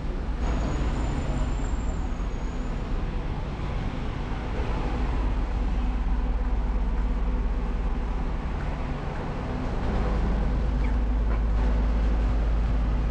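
Steady rumble of nearby road traffic, with a deep low rumble that grows a little louder near the end.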